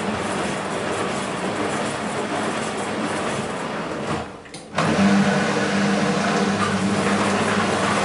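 BEKO WMB 51441 front-loading washing machine turning its drum, with laundry and water sloshing inside. The sound drops away for about half a second a little after halfway, then the motor comes back in with a steady hum.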